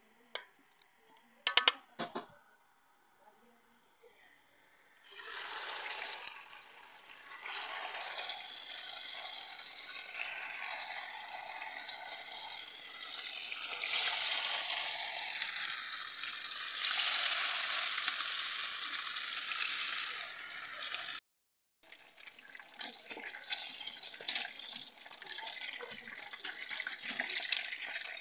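Marinated fish pieces sizzling and crackling in hot oil in a frying pan, the hiss starting suddenly about five seconds in after a few sharp clicks. It cuts out briefly about three-quarters of the way through, then carries on a little quieter with scattered crackles.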